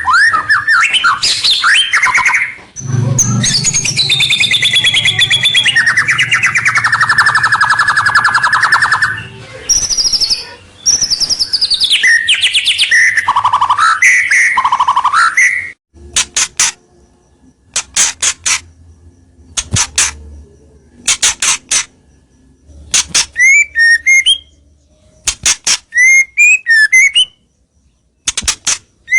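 White-rumped shama (murai batu) singing loudly: for about the first half a dense, varied song of rapid trills and sweeping whistled phrases. After that come a run of sharp clicking notes and short chirped phrases.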